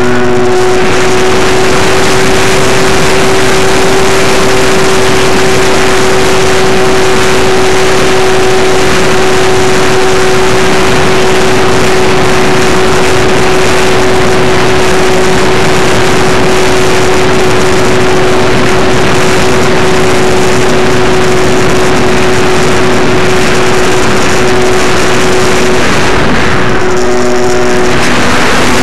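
Electric motor and propeller of an Apprentice S 15e RC plane running at a steady high throttle, a held whine heard from on board under a loud rush of air over the microphone. Near the end the rush eases briefly and the motor's pitch wavers.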